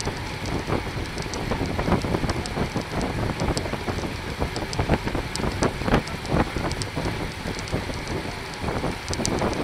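Wind rushing over the microphone and road noise while riding a bicycle, with scattered clicks and rattles throughout.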